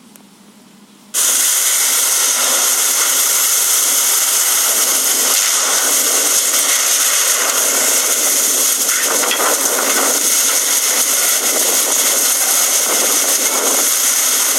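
Heavy downpour driven by strong wind: a loud, steady hiss that starts abruptly about a second in.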